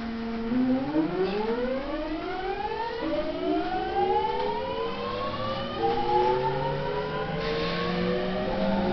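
Electric train's inverter and traction motors whining as it accelerates away from a stop: several tones climb in pitch together and shift to a new rising set about three seconds in and again about six seconds in. The train is a pre-renewal Tokyo Waterfront Area Rapid Transit 70-000 series with a GTO-thyristor VVVF inverter.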